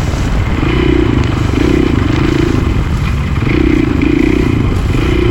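KTM supermoto's single-cylinder engine running under a rider, its note swelling and easing about once a second as the throttle is worked, over a steady low rumble.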